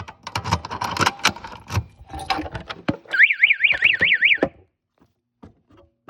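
Fire alarm sounder giving a warbling electronic tone that rises and falls about five times a second. It sounds for about a second and a half, past the halfway mark, then cuts off suddenly. Before it comes a run of sharp clicks and knocks.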